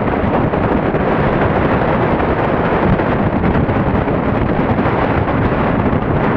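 Strong wind buffeting the microphone, a loud, steady low rumble that doesn't let up.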